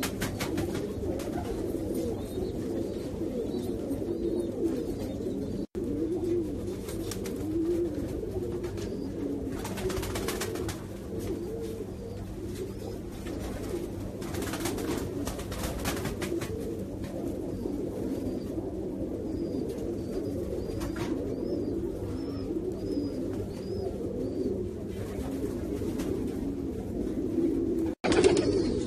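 Domestic pigeons cooing continuously in their loft cages, several birds' coos running into one another. The sound is broken twice by a brief gap.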